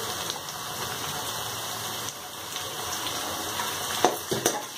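Chopped tomatoes and onions sizzling steadily in hot oil in an aluminium kadai, with a few knocks and scrapes of the ladle against the pan about four seconds in.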